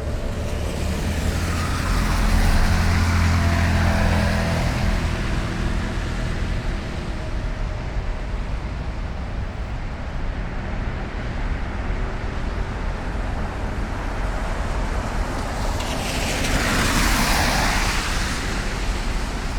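Street traffic. A vehicle with a deep engine hum passes early in the stretch, steady traffic rumble follows, and another vehicle passes close near the end, its rushing noise swelling and then fading.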